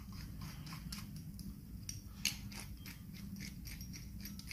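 Ratchet wrench clicking in light, irregular ticks as it screws down the bolt of a stamped steel rocker arm, with one sharper click a little past halfway.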